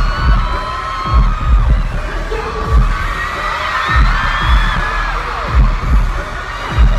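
Live pop concert music recorded from inside the crowd: a deep bass beat booming through the arena sound system, with a crowd of fans screaming over the music.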